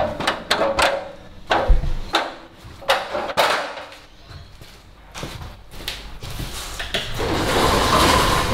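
Aluminium stepladder clanking and knocking as it is carried and stood up on a concrete floor, with one heavy thud about two seconds in. A steady rushing noise builds near the end.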